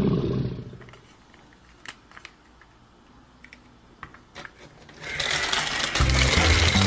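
A few light plastic clicks as the toy jeep is handled. From about five seconds in, the battery-powered toy car's small motor whirs steadily as it runs along the plastic flexible track.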